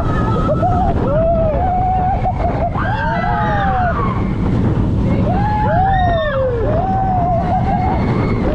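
Roller coaster riders screaming and whooping in a string of rising-and-falling calls over heavy wind rush and the rumble of the moving train.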